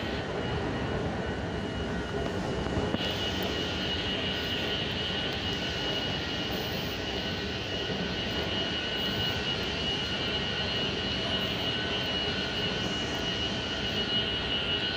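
Underground metro station ambience: a steady, even rumble with a high whine that sets in about three seconds in and holds.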